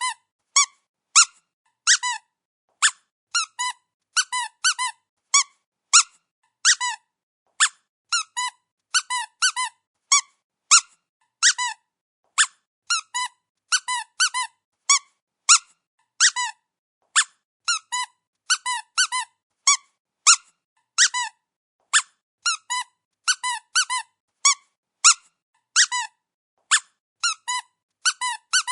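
Squeaky dog toy squeezed over and over, giving short high squeaks, sometimes singly and sometimes in quick pairs or triplets, with brief silent gaps between.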